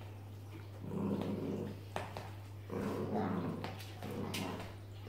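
Corgis growling in play in rough bursts of about a second each while tugging over a shoe and its lace, with a few sharp clicks in between.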